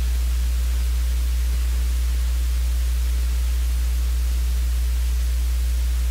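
Steady electrical mains hum with an even hiss over it, unchanging throughout, with no other sound.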